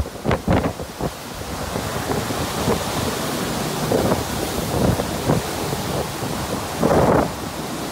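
Violent storm wind buffeting the microphone in gusts over a steady hiss of wind-driven heavy rain, with the strongest gust about seven seconds in.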